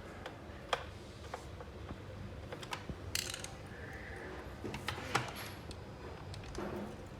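Irregular clicks and knocks of hard plastic and metal parts of a Xerox WorkCentre copier being handled, with a short scraping hiss about three seconds in and a sharper knock about five seconds in.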